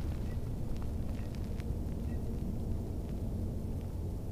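A steady low rumble, with a few faint light ticks as a spinning reel is cranked slowly through a retrieve.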